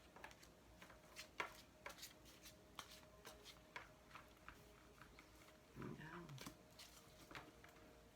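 Tarot cards being shuffled and drawn from the deck: faint, irregular clicks and taps of card stock. A brief low vocal hum is heard about six seconds in.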